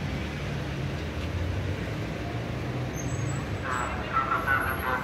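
City street traffic, with a vehicle engine running steadily close by. Voices of passersby come in briefly about four seconds in.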